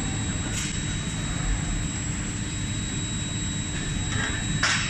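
Steady low machinery rumble of an automated forging line running between press blows, under a constant thin high whine. Two short sharp hisses cut in, about half a second in and again near the end.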